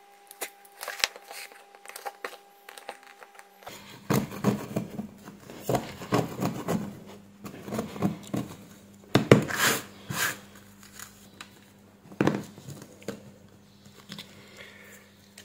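Hands working on a flashlight battery pack: crinkling, tearing and scraping as insulation and old glue are picked off the plastic cell holder and a cylindrical battery cell is fitted into it. The sound is a run of irregular clicks and rustles, busiest in the middle. A faint steady hum comes in about four seconds in.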